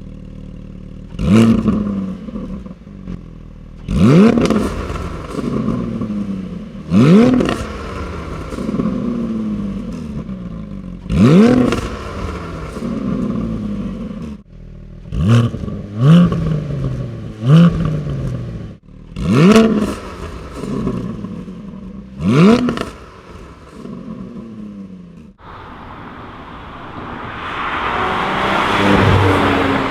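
Porsche 718 Cayman GT4's 4.0-litre flat-six with the sport exhaust valves open, idling and blipped sharply about nine times, each rev climbing fast and dropping back to idle. About 25 seconds in it changes to the car approaching under hard acceleration, growing louder toward the end.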